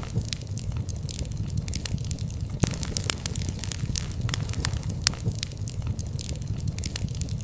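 Wood fire in a fireplace crackling: many quick pops and snaps over a steady low rumble of the flames, with one sharper pop about two and a half seconds in.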